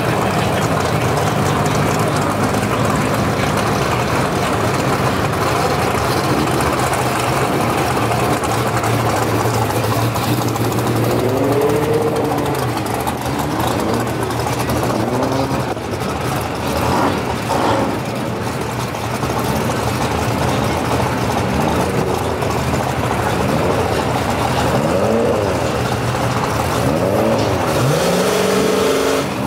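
Drag-racing street car engines running with a steady drone, then from about ten seconds in revved again and again in short rising and falling sweeps, most often near the end.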